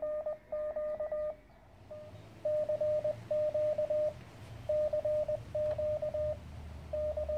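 Morse code sidetone from a Weber MTR QRP transceiver: a single steady mid-pitched tone keyed on and off in dits and dahs as the rig automatically sends a stored message from its memory in beacon mode. A faint low rumble sits underneath from about two seconds in.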